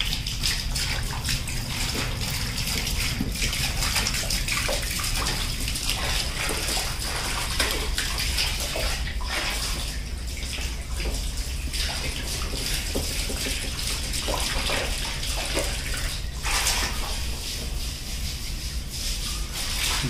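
Water from a hose spraying and splashing onto a window air conditioner's compressor and condenser coil as they are washed, a steady hiss with a low hum underneath.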